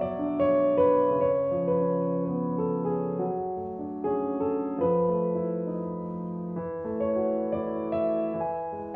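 Soft background piano music: slow sustained notes and chords, changing about once a second.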